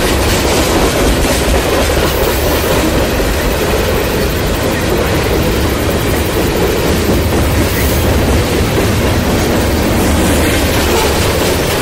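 Freight cars of a long train rolling past at close range: steady, loud rumble and clatter of steel wheels on the rails.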